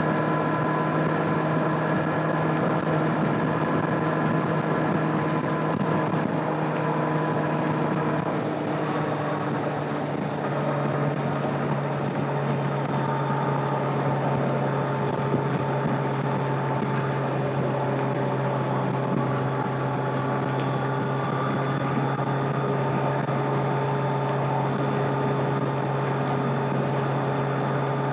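A 2025 Kawasaki Z900's stock inline-four engine and exhaust running steadily at cruising speed, with a rush of wind noise. The engine pitch changes slightly about ten seconds in, then holds steady again.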